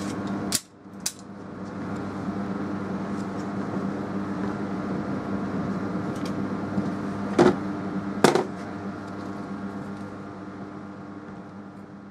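A steady machine-like hum with several fixed tones, broken by sharp knocks: two close together near the start and two louder ones about seven and eight seconds in. The hum fades away near the end.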